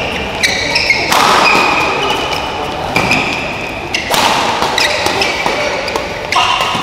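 Badminton doubles rally: sharp racket hits on the shuttlecock and short squeaks of shoes on the court floor, with crowd noise swelling about a second in and again around four seconds.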